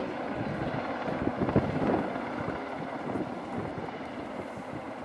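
Helicopter rotor and engine noise, fairly steady, mixed with wind on the microphone.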